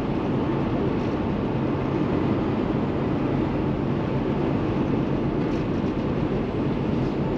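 Steady in-cab sound of a Kenworth T680 semi truck cruising at highway speed: its Paccar MX13 diesel engine running with road and wind noise.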